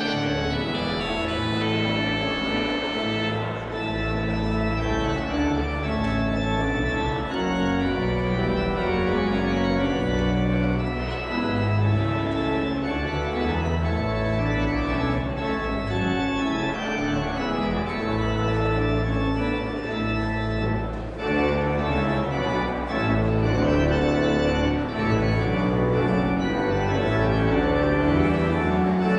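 Church organ playing a postlude: full sustained chords over a bass line that steps from note to note.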